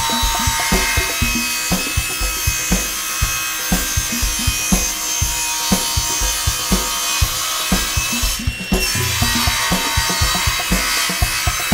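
Background music with a steady drum beat, about one strong hit a second, over the steady hiss and whine of a SawStop table saw cutting a hardwood cutting-board blank. The sound dips briefly about eight seconds in.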